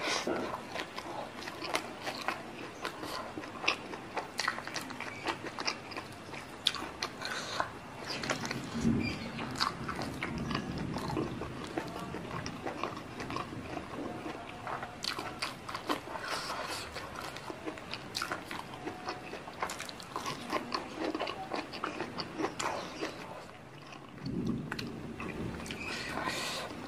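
Close-miked mouth sounds of eating: steady chewing full of crisp crunches and clicks, as raw green leaves are chewed along with rice and spicy stir-fried jumbo squid.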